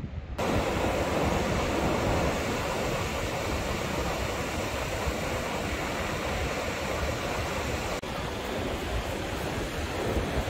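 Steady rushing noise of ocean surf breaking on a beach, mixed with wind on the microphone. It dips briefly about eight seconds in, then carries on.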